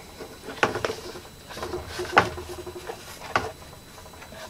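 Hard plastic clicks and knocks, with light rubbing between, as a Vexilar FLX-28 flasher unit is worked loose on its mount on the portable pack. The loudest knock comes about two seconds in.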